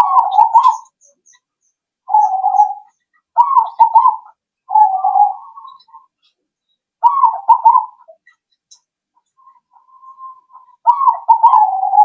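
Zebra dove (perkutut) song: short, rolling, warbled coo phrases, about six of them in twelve seconds with pauses between.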